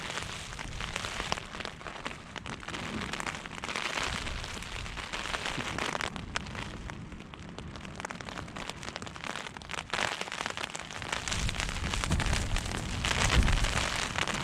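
Storm wind and rain lashing a tent, with a dense patter of rain and the fabric crackling. Gusts buffet the microphone with a low rumble, heaviest near the end.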